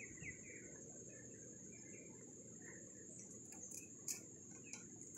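Near silence: a faint low background with a steady high hiss, broken by a few faint ticks and one slightly louder click about four seconds in.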